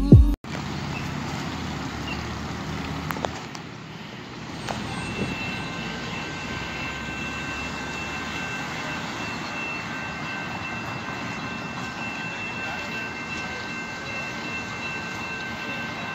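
Railroad crossing warning bell starts about five seconds in and rings steadily in high tones over street traffic noise: the crossing signals have activated for an approaching train.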